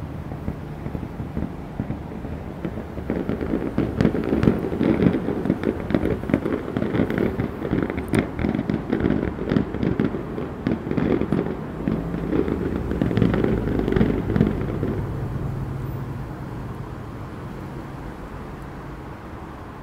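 Daytime fireworks going off over the harbour water: a dense run of crackling pops and bangs that builds from about three seconds in and dies away after about fifteen seconds, over a steady low hum.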